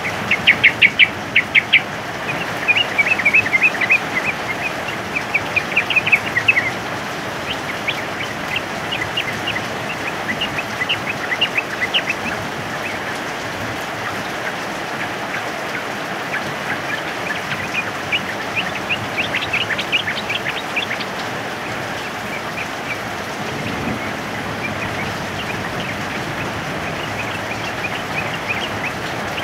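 Yellow-vented bulbuls chattering in rapid runs of short, high notes over the steady hiss of heavy rain. The bird calls are busiest in the first few seconds and again for a moment past the middle.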